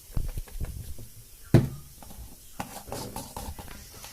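Bottles of harissa peppers in oil being handled and turned, giving a run of knocks and clinks. One sharp, loud knock comes about a second and a half in, then more clatter.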